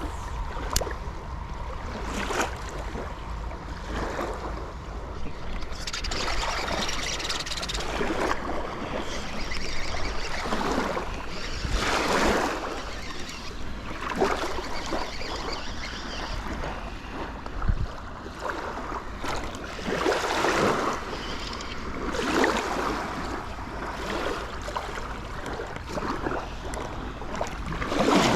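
Lake waves washing and splashing at the shore in surges every few seconds, with wind rumbling on the microphone.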